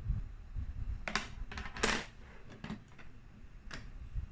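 A smartphone clicking and knocking against the tempered-glass installation box as it is pushed in and does not fit: about four sharp clicks, the loudest just under two seconds in, over low handling rustle.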